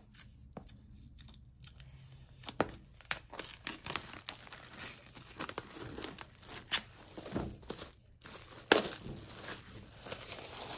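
Plastic shrink wrap being torn open and peeled off a board game box, crinkling and tearing in irregular crackles. It is quiet for about the first two seconds, and the loudest crackle comes near the end.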